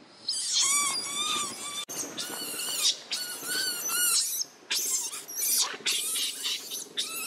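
Baby long-tailed macaque screaming over and over in high, wavering cries, one close after another: distress screams of a baby being held down by a larger monkey.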